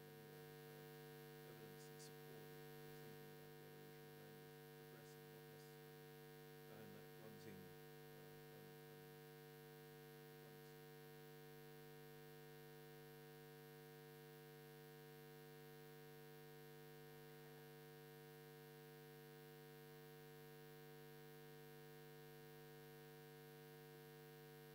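Near silence: a steady electrical mains hum made of several fixed tones, with faint traces of a voice during the first several seconds.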